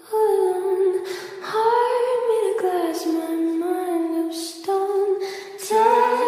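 Background song: a high-pitched voice singing held notes that slide up and down between them.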